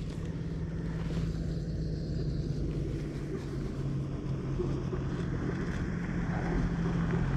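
A motor vehicle's engine running with a steady low hum, growing gradually louder toward the end.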